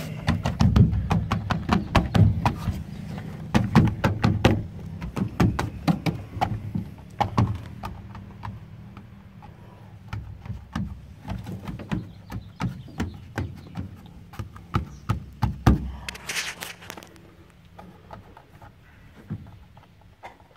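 An irregular run of knocks and taps: heavier low thumps come thick and fast over the first half, then lighter, sparser ticks follow, with a brief hiss about three-quarters through.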